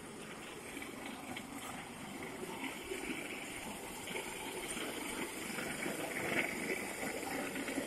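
Walk-behind concrete floor grinder running steadily as a steady rushing noise while it grinds an old yellow line-marking off the floor.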